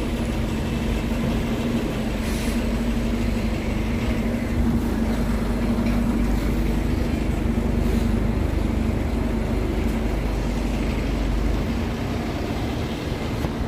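Bus engine running with a steady low drone that eases off slightly near the end.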